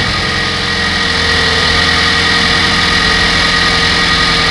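Car engine running steadily at idle just after being started, with a steady high whine over it.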